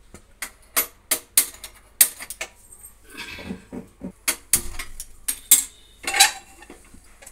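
Hand-held spark gas lighter clicking repeatedly at the stove burner, a dozen or so sharp irregular clicks, while the aluminium pressure cooker clanks and scrapes as it is set and shifted on the burner grate, with a scrape about six seconds in.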